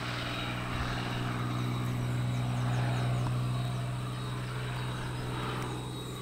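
Cessna 182 single-engine propeller plane climbing away after a short-field takeoff. Its steady engine-and-propeller drone swells to a peak about halfway through, then fades as the plane flies off.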